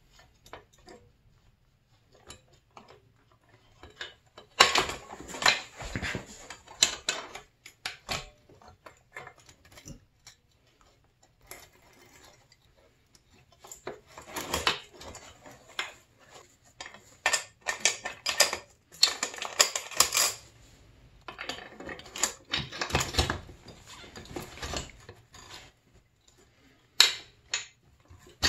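Metal parts of a dirt bike's rear end clinking and clattering as the rear wheel is refitted: the loose drive chain and the steel axle knocking against the sprocket, hub and swingarm. The clatter comes in several bursts with short quiet gaps between them.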